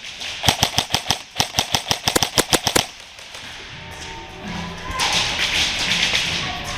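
Airsoft guns firing in rapid strings of sharp snaps, about ten shots a second, for the first three seconds. Near the end a steady rustling hiss follows.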